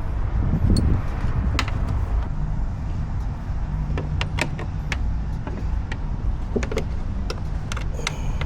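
Scattered sharp clicks and knocks of plastic and metal parts as the soft-close door latch actuator is worked into alignment inside the door, over a steady low rumble.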